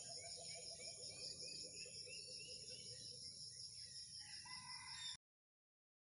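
Outdoor nature ambience: a steady high insect drone with rapid, repeated bird chirps and a longer, held call near the end. It cuts off abruptly about five seconds in, leaving silence.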